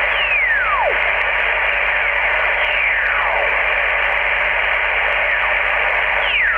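ICOM IC-718 HF transceiver's speaker hissing with dense band noise on 20 metres in USB with the preamp on, while the dial is turned up the band. Several whistling carrier tones glide down in pitch through the noise as they are tuned past. The owner calls the reception horrible.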